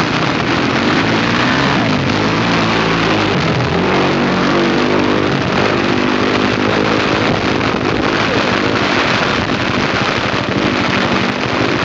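Engines of rally vehicles running, their pitch drifting up and down, under a steady hiss of heavy rain.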